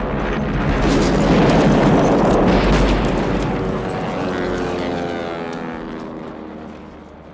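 A large explosion rumbling, loudest about one to three seconds in, then a light propeller plane's engine droning with its pitch gliding as it flies off, fading toward the end.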